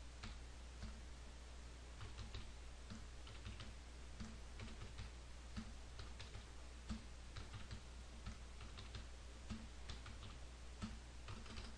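Computer keyboard being typed on: a quick, irregular run of key clicks as a long number is keyed in, over a faint steady low hum.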